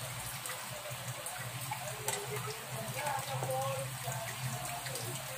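Chicken-neck adobo bubbling at a simmer in a wok, a steady crackling bubble noise over a constant low hum.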